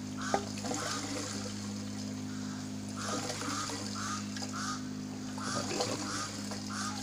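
An aquaponics bell siphon gurgling as it gets ready to trigger, in short honk-like burbles about two a second with a pause after the first second, over the steady low hum of the airlift pump's air pump.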